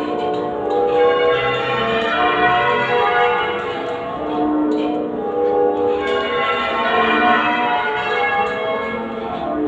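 Change ringing on a ring of eight Mears & Stainbank church bells tuned in F#, rung half-muffled. The bells strike one after another in an unbroken rhythm, the rows swelling and easing by turns.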